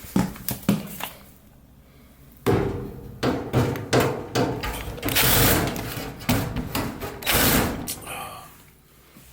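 Tool work on a dryer's heating element housing: a few clicks, then a power driver running in short spurts to back out screws, with metallic knocks and rattles from the dryer panels.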